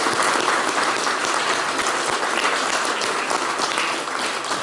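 Audience applauding, a dense, steady clapping that eases off slightly near the end.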